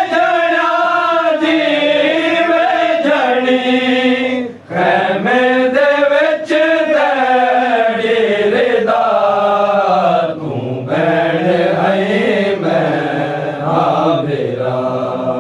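Male voices chanting a Shia Muharram noha (a mourning kalam for Ghazi Abbas) in long, drawn-out notes that glide up and down in pitch, with a brief pause about four and a half seconds in.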